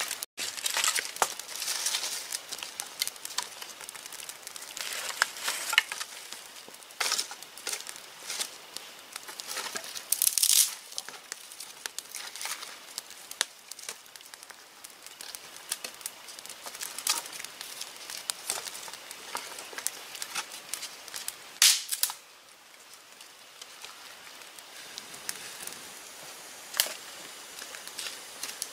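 Dry twigs and sticks snapping and crackling with rustling debris as a small wood fire is fed and stoked, in irregular sharp cracks; the sound thins out to occasional clicks about two-thirds of the way through.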